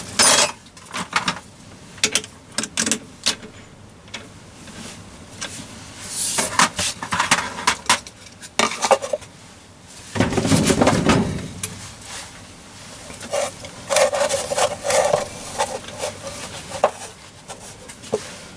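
Hand-handling sounds at a metal lathe: scattered clicks, knocks and clinks of metal tools and parts. About ten seconds in there is a longer, louder rub as a wooden board is laid across the lathe bed.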